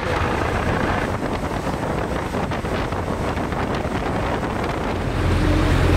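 Wind buffeting the microphone over the running engine of an inflatable rescue boat under way on the water. The low engine rumble grows louder about five seconds in.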